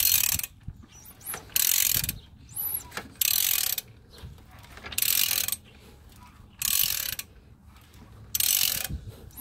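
Ratchet wrench clicking on the crankshaft bolt as the engine is turned over by hand, in six half-second runs about every one and a half to two seconds.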